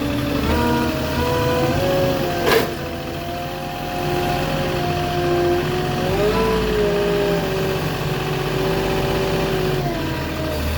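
Flatbed truck engine running as the truck drives, its pitch shifting as it speeds up and slows. A brief sharp burst about two and a half seconds in.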